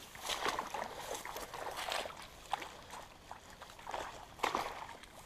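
Irregular splashing and sloshing in shallow water as a hooked fish is reeled in and brought to the bank, in a few separate bursts.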